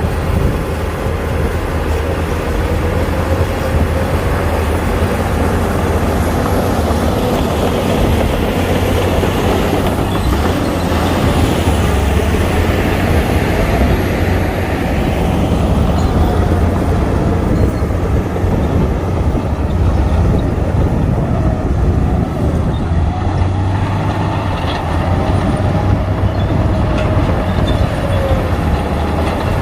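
Shantui DH17C2 bulldozer's diesel engine running steadily under load as it pushes soil, a heavy low rumble whose pitch rises and falls slightly as it works.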